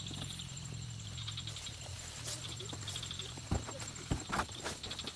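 Insects chirping in short, rapid pulsed trills over a steady high trill, with a low hum that fades out about three seconds in. Several sharp knocks sound in the second half.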